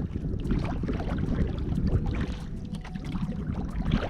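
Water splashing and lapping around a sea kayak, with a low wind rumble on the camera microphone.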